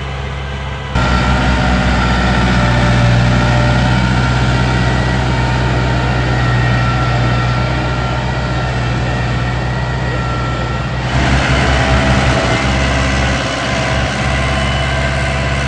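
Kubota L4508 tractor's diesel engine running steadily under load as it pulls a disc harrow through stony soil. The sound changes abruptly about a second in and again about eleven seconds in.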